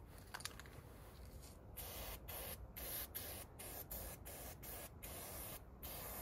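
Aerosol spray-paint can hissing in short bursts, about two a second, as black lettering is sprayed onto a hoodie.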